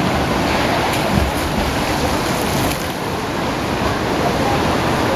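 Steady noise of splashing water from several swimmers doing laps in an indoor pool, with front-crawl strokes churning the water.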